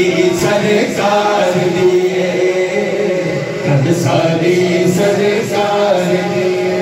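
A man singing a naat unaccompanied into a microphone, holding long notes that bend and slide between pitches.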